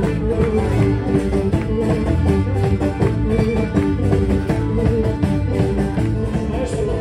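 Cretan folk dance music, plucked string instruments over a steady beat, playing without a break.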